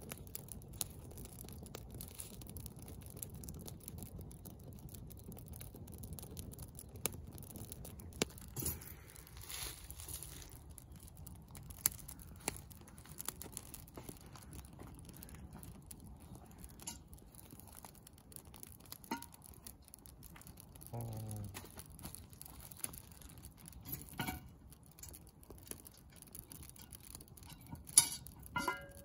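Wood campfire crackling, with irregular snaps and pops of burning sticks. Near the end a sharp metal clank rings out as a cast-iron Dutch oven is set down on the grill grate over the fire.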